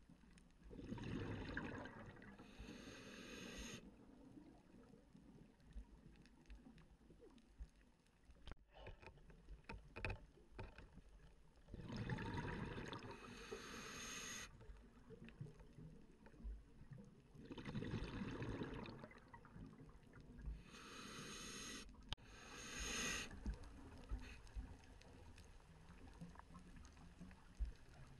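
Scuba diver's breathing underwater: bursts of exhaled bubbles from the regulator rushing past the camera, each lasting one to three seconds, separated by quieter stretches.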